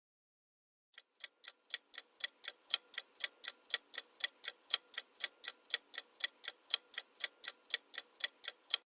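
Clock ticking sound effect: a quiz countdown timer, about four sharp ticks a second, starting about a second in.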